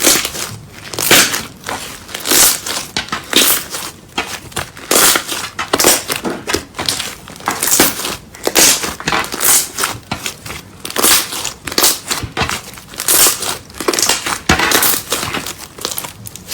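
Slime being squeezed and pressed by hand, giving noisy crackling squishes roughly once a second.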